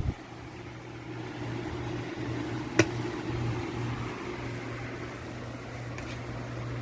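Electric table fan running steadily: a low motor hum under the rush of air. A single sharp click sounds about three seconds in, and a faint tick near the end.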